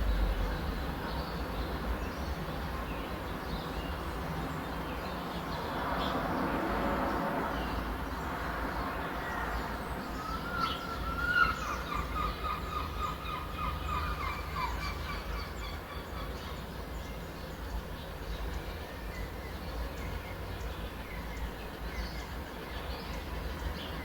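A bird gives a rapid chattering call of quickly repeated notes for about four seconds, starting near the middle. Underneath runs a steady low outdoor rumble, with a broad swell of noise a little before the call.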